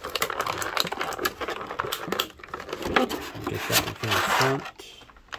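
Clear plastic blister tray crinkling and clicking as it is handled and the plastic tabs holding an action figure in it are cut, a rapid, irregular run of small clicks and crackles.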